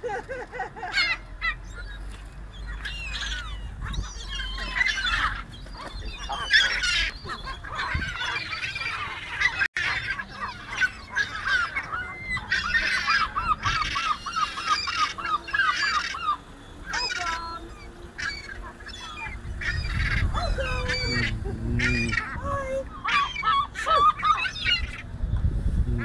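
A flock of herring gulls calling over one another as they compete for food, with a long fast run of repeated calls around the middle.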